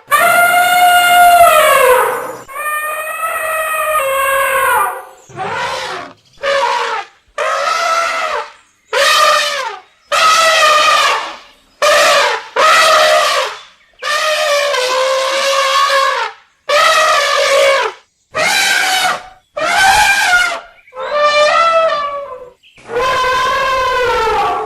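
Elephants trumpeting: a series of about fifteen loud, brassy trumpet calls, each a second or two long, separated by short gaps, their pitch bending and often dropping toward the end.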